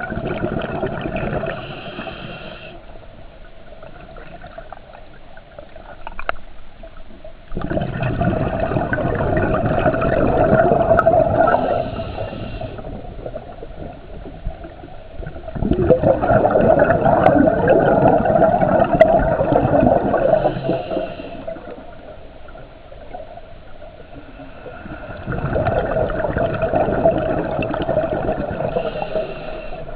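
A scuba diver breathing through a regulator, heard underwater: each exhalation comes as a burst of bubbling lasting a few seconds and recurs about every nine seconds, with quieter inhalations between.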